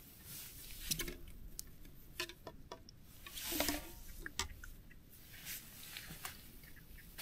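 Scattered small knocks, clicks and rustles of camping gear being handled: a plastic water bottle and drink cans picked up and set down, and the bottle's cap worked open, with clothing rustling.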